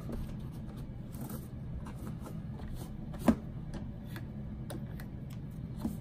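Handling noise from cleaning an iRobot Roomba i7: scattered light clicks and rustles of plastic parts over a steady low hum, with one sharp click about three seconds in.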